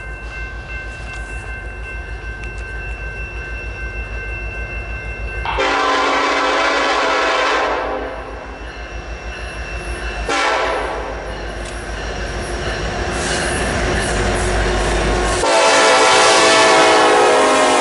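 Diesel freight locomotive horn sounding three long blasts as the coal train nears the grade crossing, the last one loudest as the lead locomotives pass. The locomotives' engines rumble louder between the blasts. A crossing bell rings steadily before the first blast.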